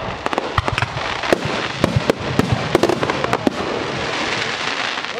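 Aerial fireworks bursting in quick succession, many sharp bangs over a dense crackle. In the last second and a half the bangs thin out and a steady crackling hiss of crackling stars takes over.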